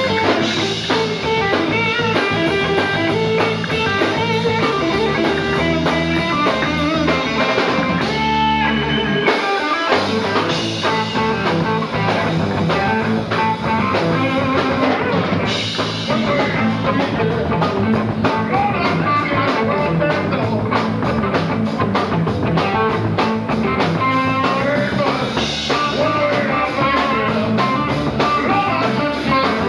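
Live bar band playing blues-rock: electric guitar, electric bass and a drum kit. About nine seconds in, the bass and drums drop out for a moment before the full band comes back in.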